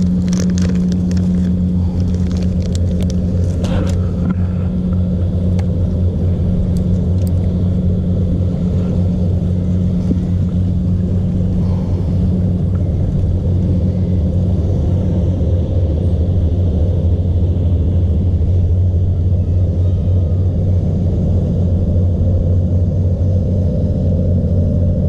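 Steady, loud low mechanical hum and rumble, with a few clicks and knocks in the first four seconds.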